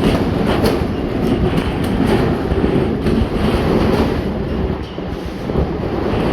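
Hurricane-force wind, about 120 km/h, battering a metal barn: a loud, continuous rumble with the building's sheet metal rattling and banging throughout, like the loudest thunderstorm.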